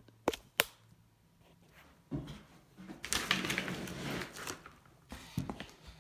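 Handling sounds at a wood lathe: two sharp clicks, a brief scrape, then a longer scraping rustle about three seconds in, and a few more knocks near the end.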